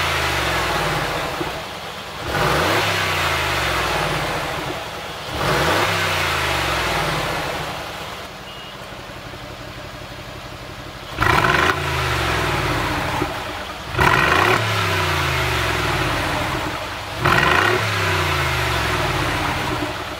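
Brabus valve-controlled exhaust on a Mercedes-Benz G500 4x4² twin-turbo V8, the engine blipped while standing and falling back to idle after each rev. For the first ten seconds it is in quiet mode, with the flaps closed and gentler revs. About eleven seconds in it switches to loud mode with the flaps open: three sharper, clearly louder revs.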